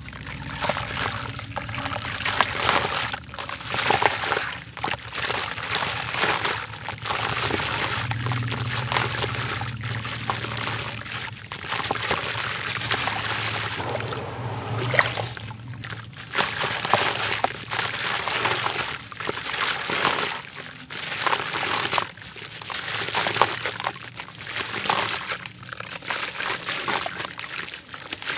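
Water sloshing, pouring and trickling as hands squeeze, crumble and swish soaked red dirt blocks in a basin of water, with the level rising and falling as the hands move.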